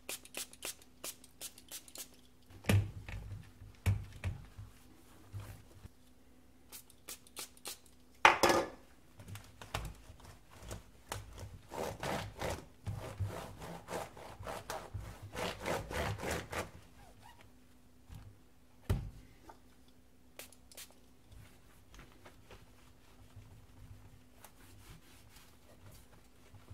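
Microfibre cloth rubbing and wiping over a laptop's screen, keyboard and plastic lid in runs of short strokes, with handling knocks and a brief louder rush about eight seconds in.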